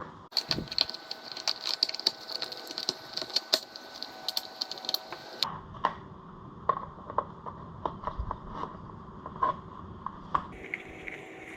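Hands working on plastic ATV parts, clips and hoses: a run of small clicks and taps, dense for about five seconds, then sparser.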